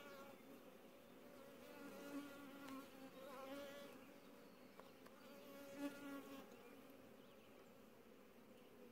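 Honeybees buzzing around an opened hive: a faint steady hum, with single bees flying close past and swelling louder several times. The beekeeper hears no queenless roar from the colony but finds the bees aggressive.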